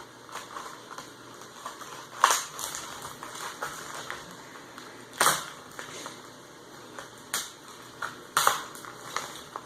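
Tape-wrapped plastic and cardboard packaging crackling and rustling as it is cut and pried open with a razor knife, with a handful of sharp cracks, the loudest about two and five seconds in.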